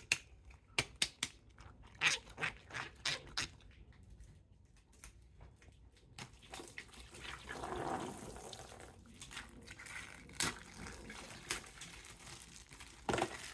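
Hands handling small plastic toys and packaging: scattered light clicks and taps, thickest in the first few seconds, with a soft rustle around the middle.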